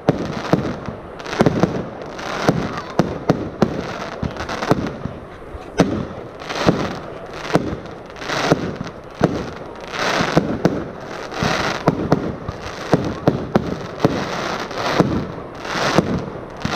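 Army Box 79-shot fireworks cake (19–50 mm calibres) firing a rapid run of shots: sharp launch reports several times a second, with shell bursts swelling in between.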